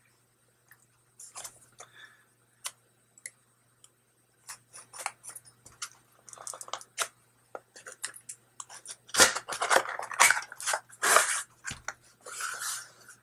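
A small cardboard product box being handled and opened, with a hobby knife slitting its seal. There are a few scattered taps and clicks at first, then scraping and rustling of cardboard that grows louder about nine seconds in as the lid is opened.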